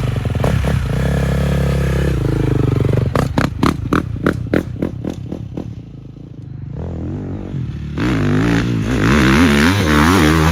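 Husqvarna FC 350 four-stroke single-cylinder dirt bike engine being ridden. It runs steadily at first, then pulses about three times a second as it fades away. About eight seconds in it comes back loud, revving up and down over and over.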